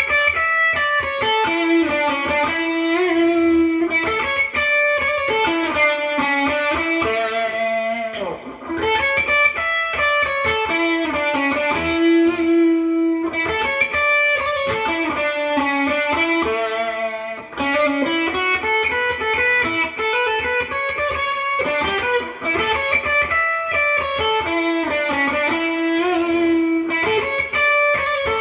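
PRS SE McCarty 594 electric guitar played through an amplifier: melodic phrases of picked notes, with short breaks about 8 and 17 seconds in.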